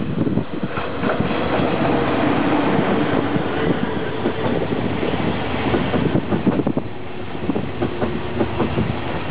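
A regional passenger train, a DB class 111 electric locomotive hauling red coaches, passing close by: steel wheels clattering over the rail joints in a dense, steady stream of clicks over the rumble of the running gear.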